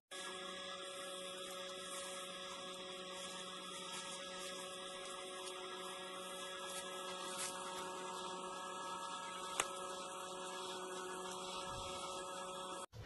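Steady electrical hum made of several fixed tones over a faint hiss, with one short click about nine and a half seconds in.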